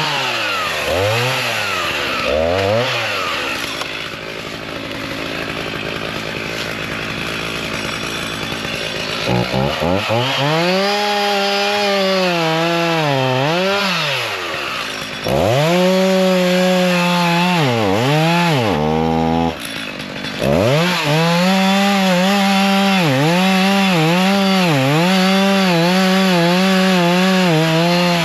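Two-stroke chainsaw cutting cedar trees: a few quick revs at first, then the engine note sags and climbs back again and again as the chain bites into the wood and frees. It drops out briefly a little past the middle, then picks up again.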